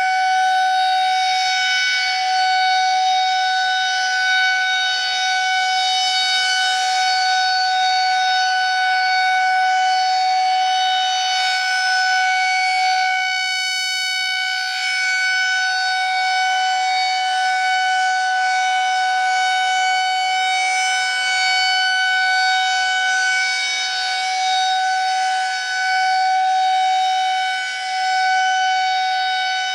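Federal Signal 2001-130 rotating electromechanical warning siren sounding a test, holding one steady pitch. Its level swells and fades slowly as the head turns, dipping briefly about halfway through.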